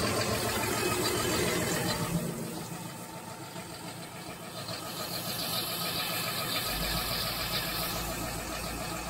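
Cummins QSB 6.7 six-cylinder turbodiesel in a wheel loader running steadily; its level dips about two seconds in and builds back up.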